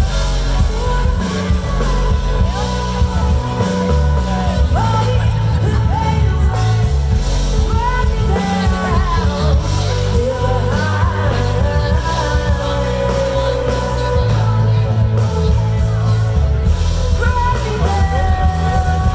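Live band with a singer, amplified through outdoor PA speakers: a sung melody over a heavy bass line.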